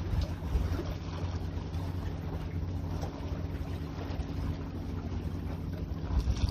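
Wind rumbling on the microphone by the sea, over a steady low engine hum.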